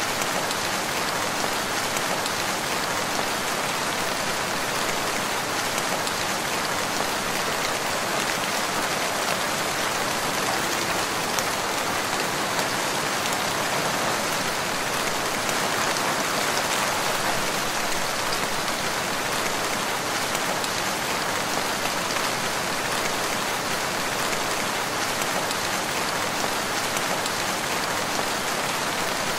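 Steady rain falling, an even hiss of many drops with no thunder and no rise or fall in strength.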